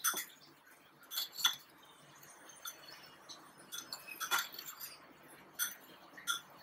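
Metal spoon clinking and scraping against a ceramic bowl while tossing paneer cubes with salt and pepper: a handful of light, irregular clinks.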